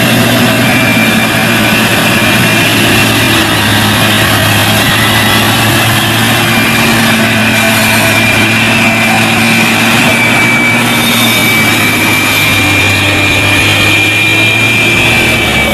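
Heavy diesel truck engine running steadily under load as the loaded truck labours through mud under tow, with a thin steady high whine over it.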